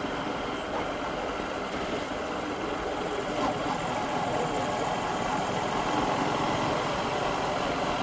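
Motorcycle engine running steadily, getting slightly louder as the seconds pass.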